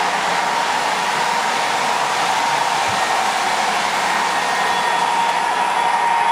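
MTH O-gauge model diesel locomotive running on its onboard sound system: a steady rushing noise with a faint steady whine.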